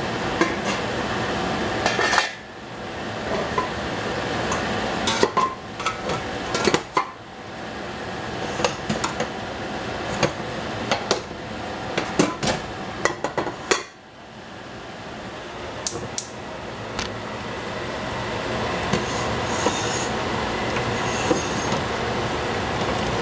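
Metal utensil clinking and scraping against a pan over a steady hiss of food cooking on high heat. The hiss drops away suddenly twice, about two seconds in and again past the middle, and builds back up each time.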